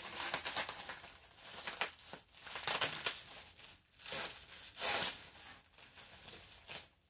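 Plastic packing wrap rustling and crinkling in irregular bursts as it is handled and pulled apart by hand during unwrapping.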